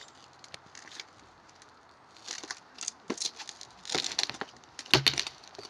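Plastic garbage can bumping and scraping on concrete as a person stuck head-first inside it tips over and struggles, with rustles and scuffs and one loudest knock near the end.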